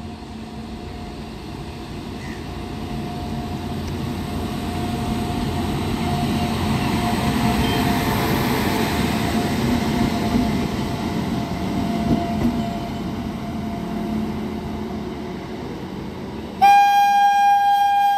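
WAG-9 electric locomotive running past on the rails: a rumble that swells to a peak midway and then eases, with a steady thin whine running through it. Near the end a second electric locomotive sounds a loud, steady horn blast.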